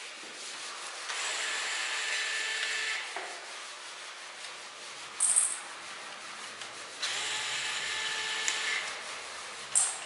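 Small cordless electric screwdriver whirring in two runs of about two seconds each while working the screws on the terminals of a capacitor bank, with two short sharp clicks between and after the runs.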